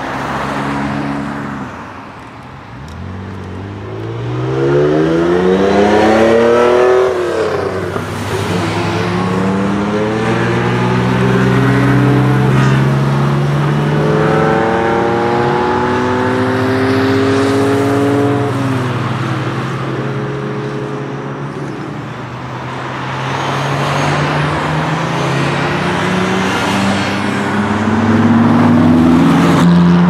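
Ferrari sports car engines revving hard as the cars pass one after another and accelerate away. The engine note climbs in pitch, breaks at a gear change, holds, then climbs again. It is loudest about a third of the way in and again near the end.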